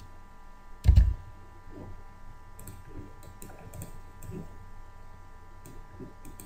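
Scattered computer mouse and keyboard clicks, a few sharp ticks spread across several seconds, with one louder low thump about a second in. A faint steady electrical hum runs underneath.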